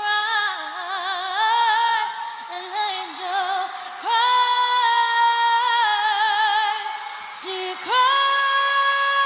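A woman singing a cappella, with no instruments: slow phrases of long held notes with vibrato and pitch slides between them.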